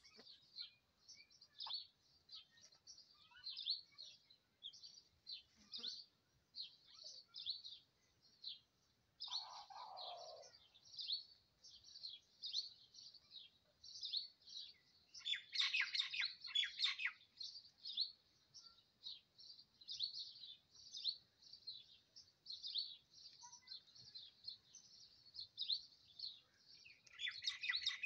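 Many small birds chirping steadily, high and rapid, with a louder flurry of chirps about halfway through and a brief lower call around ten seconds in.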